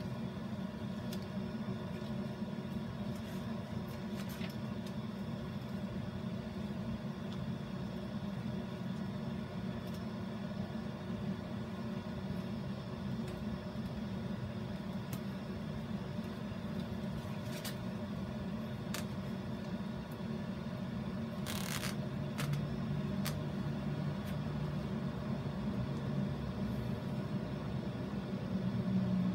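Steady low mechanical hum, with a few short clicks and a brief rustle as damp sphagnum moss is pressed and handled.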